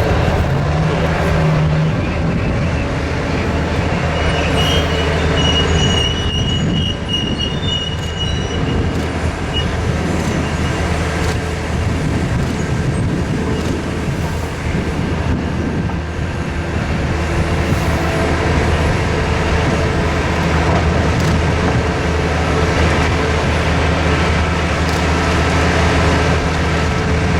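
Liebherr R9350 mining excavators working, a steady loud engine drone throughout. A high metallic squeal sounds from about five seconds in to nearly ten seconds.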